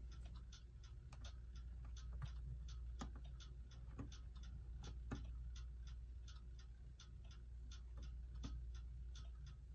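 Faint light ticking clicks, fairly even at about three to four a second, over a low steady hum.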